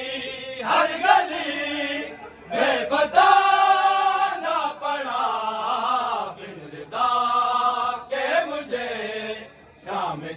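A group of men chanting a noha, a Shia mourning lament, in unison. The long drawn-out notes slide down in pitch, with short breaks between phrases.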